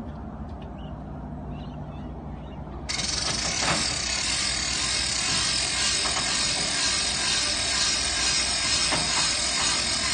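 Ratcheting lifting gear at the front of a ground-loading trailer being worked by hand, a dense steady mechanical clatter that starts abruptly about three seconds in.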